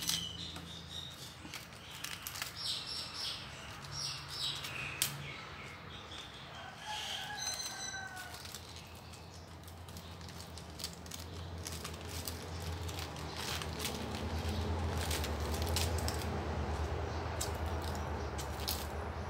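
Crisp iceberg lettuce leaves torn off the head and pulled apart by hand: scattered crackles and rustles, densest in the second half. Birds chirp in the background during the first half, and a low hum swells in the later part.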